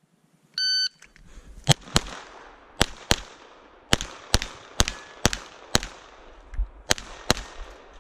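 Electronic shot-timer start beep, short and high-pitched, then a pistol firing about a dozen shots, mostly in quick pairs, as a USPSA stage is shot.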